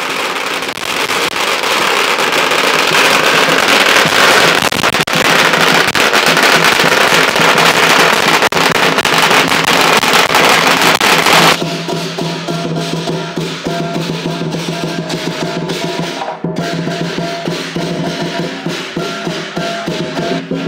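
A long string of firecrackers going off in a dense, loud, continuous crackle for about eleven seconds. It changes abruptly to music with drums and steady held tones.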